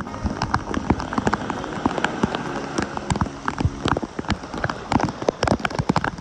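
Heavy downpour of tropical rain: a steady hiss with a dense, irregular run of sharp ticks from drops striking close by.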